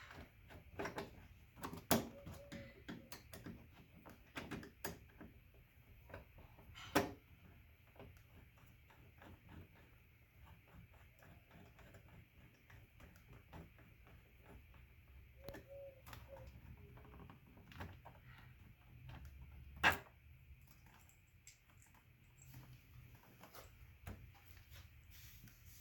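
Faint scattered clicks and taps of hand tools working screws out of a Jeep Cherokee XJ's plastic door trim panel, with three sharper knocks spread through.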